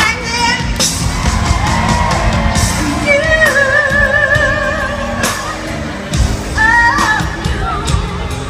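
Live freestyle pop music played loud in a large hall, with a steady drum beat and a woman singing; she holds a long wavering note about three seconds in and a shorter one near seven seconds.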